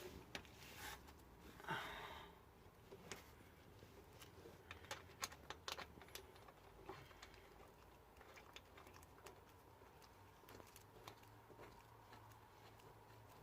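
Faint, irregular small metal clicks and taps of water pump bolts being fitted by hand, with one brief louder scrape about two seconds in.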